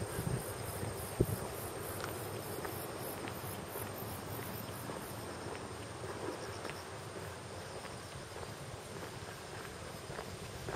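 Steady, high-pitched insect chorus, a shrill whine with a fast even pulse, with a single thump about a second in and faint light ticks, likely footsteps.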